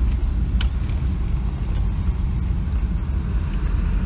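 Car cabin noise while driving: a steady low engine and road rumble, with a short click about half a second in.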